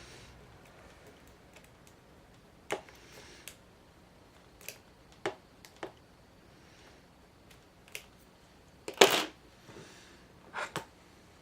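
Scattered sharp clicks and taps of a lock pick and tension wrench working the pins of an ACE rekeyable padlock, held in a false set by its serrated spool pins. The loudest run of clicks comes about nine seconds in.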